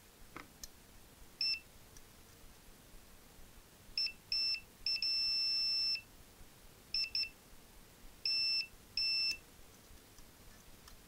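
A multimeter's continuity beeper sounding in short, irregular beeps, one of them held for about a second, as the test probes make and lose contact on a switch's pins.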